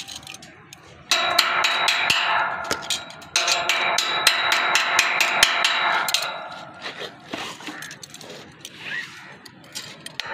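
Chipping hammer knocking slag off a fresh stick weld on steel pipe: rapid strikes with the pipe ringing, in two runs of a couple of seconds each, then slower, lighter taps.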